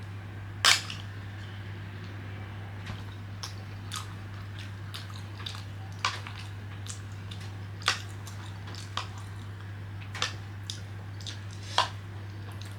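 Scattered sharp clicks and taps of eating with chopsticks, irregularly spaced, the loudest about a second in, over a steady low hum.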